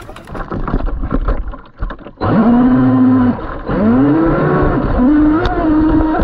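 Onboard a Traxxas M41 Widebody catamaran RC boat: water slapping and splashing against the hull, then about two seconds in the electric motor and drive spin up into a loud whine. The whine drops away briefly, climbs again and then holds nearly steady.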